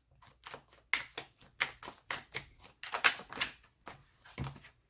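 Tarot cards being shuffled by hand: a run of quick, irregular clicks and flicks as the cards slap against each other.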